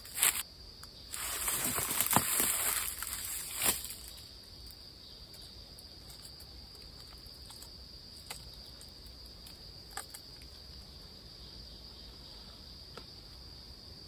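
Footsteps and rustling in dry leaf litter for the first few seconds, then a quiet, steady, high-pitched insect chorus with a few faint ticks.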